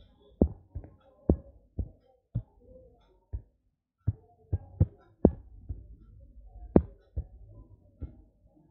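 Fingertip taps on a phone touchscreen as digits are keyed in: an irregular run of about fifteen short knocks, a few of them sharper than the rest.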